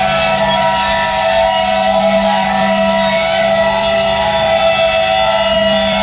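Brakes of a rolling work train of flat wagons loaded with rails squealing: a steady, high screech of several tones at once, over a lower steady hum.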